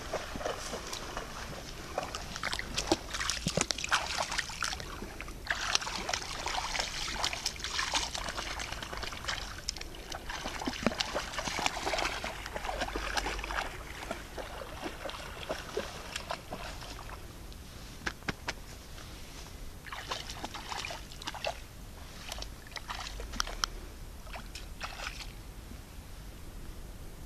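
Rhodesian ridgebacks wading and splashing through shallow pond water: irregular sloshing and splashing, busier in the first half and again near the end.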